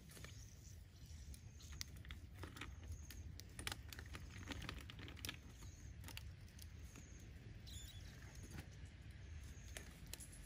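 Apple snails roasting in their shells on a wire grill over a wood fire, with faint scattered clicks and pops. A short high chirp repeats about once a second behind it, over a low steady rumble.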